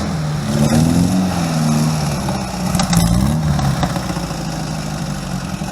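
A vehicle engine running, its revs rising and falling.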